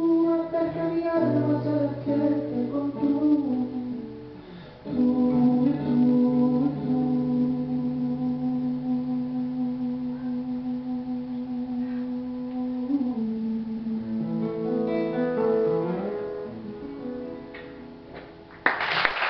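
A male voice and acoustic guitar finishing a song live: sung lines that bend in pitch, then long held notes that fade out. Applause breaks out suddenly near the end.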